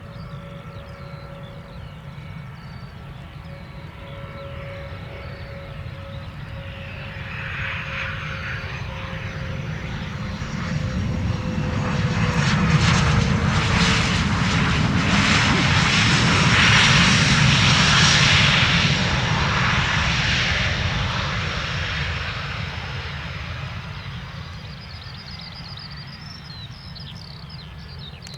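Jet aircraft passing close by: engine noise builds over about ten seconds to a peak in the middle, then fades away, with a high whine that drops slightly in pitch as it goes past.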